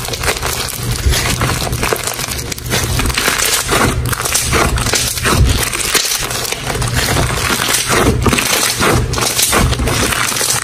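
Crunchy foam-bead slime being squeezed and kneaded by hand, the beads giving a dense, irregular crackling and popping.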